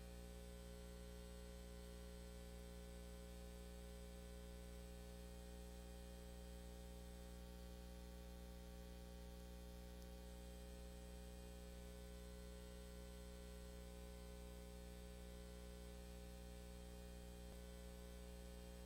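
Near silence: room tone of a steady low hum with faint hiss, unchanging throughout.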